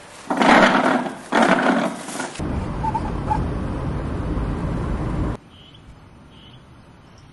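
Two loud rustling pulls of paper towels from a wall dispenser. Then about three seconds of steady road noise inside a moving car, cut off abruptly, followed by quiet outdoor air with a few faint chirps of birds.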